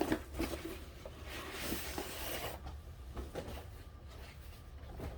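Handling noise as a plastic toy belt is unpacked: light knocks, then a rough rubbing scrape of packaging lasting about a second and a half, then quieter fiddling.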